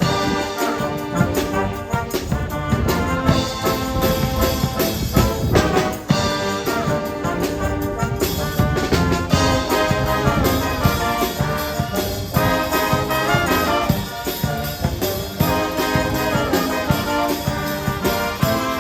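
Music led by brass instruments, with trumpets and trombones playing sustained notes.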